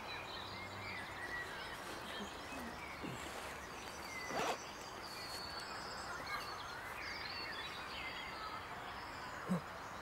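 Quiet outdoor ambience with a steady hiss and faint scattered bird chirps. A sharp click sounds about four and a half seconds in, and a short soft knock comes near the end.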